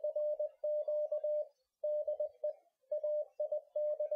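Morse code: a single steady beep keyed on and off in dots and dashes, sent in several short groups with brief pauses between them.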